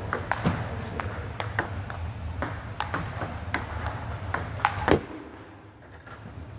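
Table tennis balls clicking off bats and the table in a multiball drill: backspin feeds bouncing on the table and being looped back with topspin, two or three clicks a second. A louder knock comes about five seconds in, after which the clicks stop.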